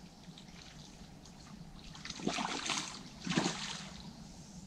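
A hooked tench thrashing at the surface while being played on rod and line: two splashes, the first about two seconds in and a second, sharper one just over three seconds in.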